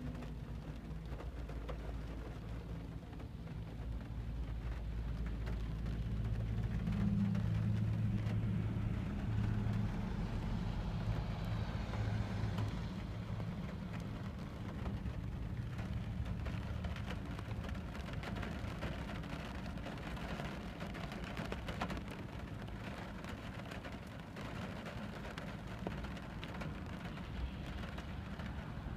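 Car engine and road noise heard from inside the cabin while driving in the rain, with raindrops hitting the car's glass and body. The low engine hum swells for a few seconds about a quarter of the way in, then settles.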